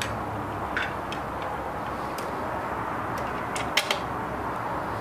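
Light clicks and taps of hands handling the plastic rear casing of a Baratza Forte grinder, with two sharper clicks close together near the end, over a steady background hiss.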